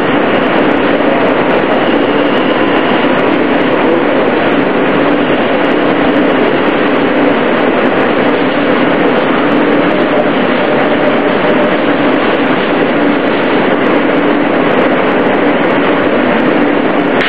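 Steady running noise of an R160A-2 subway car in motion, heard from inside the car: a dense, even rumble and rush of wheels on rail, with a few faint steady tones.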